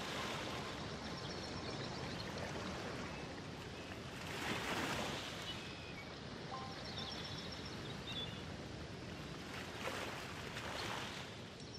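A rushing, surf-like wash of noise swells and fades three times, about five seconds apart, with a few faint high notes. It is the nature-sound layer of a relaxing instrumental music track.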